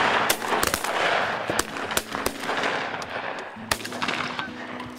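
Several hunters' shotguns firing in a ragged volley: a quick run of shots in the first couple of seconds, then one more loud shot about three-quarters of the way through.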